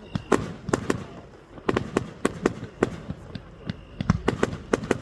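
Fireworks bursting in an irregular series of sharp bangs, about a dozen in quick succession, some close together in pairs and clusters.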